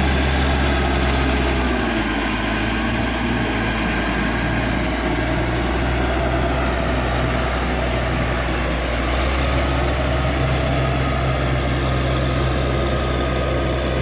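Caterpillar D6G bulldozer's diesel engine running steadily; its note drops about two seconds in and picks back up around nine to ten seconds.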